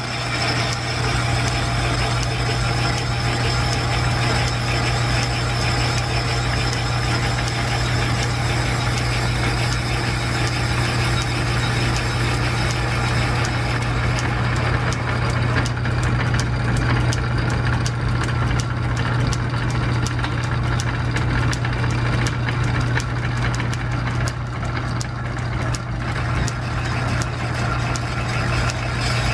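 Metal lathe running steadily, turning a brazed-up steam engine piston, with a constant low machinery hum. A fast ticking joins about halfway in as the cutting tool works the piston.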